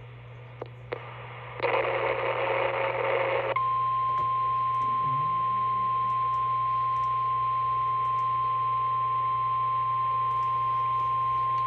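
A harsh two-second burst of SAME digital header data over weather radio, then the NOAA Weather Radio 1050 Hz warning alarm tone, one steady high-pitched tone held unbroken. It signals a warning broadcast, here a flood warning.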